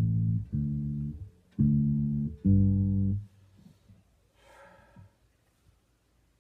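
Electric bass guitar, a Precision-style bass, played one note at a time: four held, plucked notes, the last dying away about three seconds in. Only faint small noises follow.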